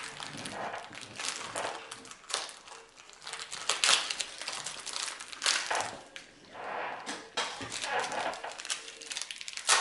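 Plastic packets of craft sequins crinkling in short, irregular rustles as they are handled and opened.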